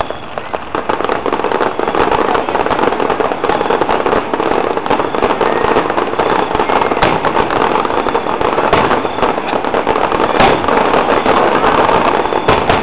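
Fireworks display: a dense, continuous crackle of many rapid small pops that swells up in the first second or two, with a few louder bangs near the end.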